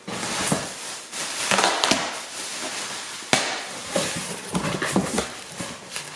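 A cardboard box being opened by hand: flaps pushed back and packaging inside rustling and crinkling, with a sharp click about three seconds in.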